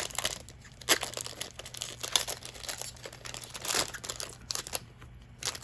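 Foil wrapper of a Magic: The Gathering booster pack crinkling in irregular crackles as it is handled and torn open.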